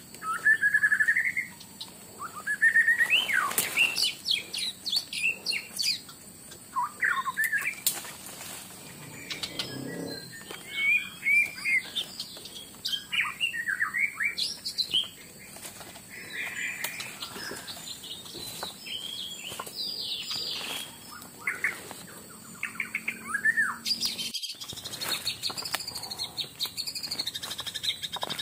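Forest birds chirping and calling: many short whistled notes, some rising, with a few sharp clicks between them. Near the end a steady high buzz takes over.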